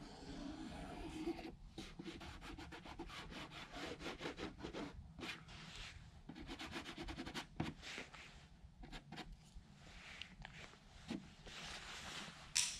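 Pencil rubbing in quick, repeated strokes along the edge of a fabric doily glued onto a fabric-covered aircraft wing, pressing the doily down into wet adhesive, about five scratchy strokes a second for several seconds. A brief sharper noise comes near the end.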